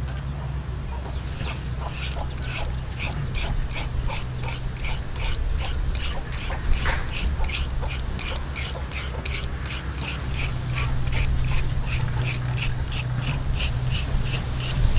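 Julienne peeler scraping down a raw carrot in quick, even strokes, about three a second, shredding it into thin strips, over a steady low rumble.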